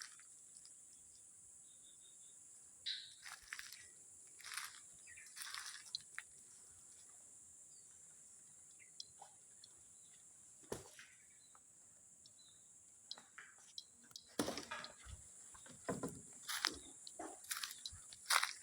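Steady high-pitched insect drone, the 'strange sound' of the old building, going on unbroken. Scattered scuffs and knocks come about three seconds in and again from about fourteen seconds in.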